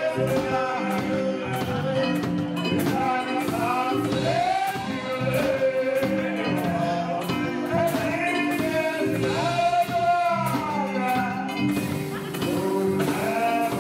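Live band music: a man singing into a microphone over a drum kit, bass guitar and keyboard.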